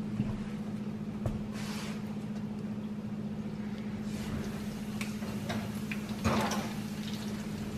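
An electric oven door is pulled open and the bacon tray inside is reached for, with a short clatter a little after six seconds. A steady low hum runs underneath.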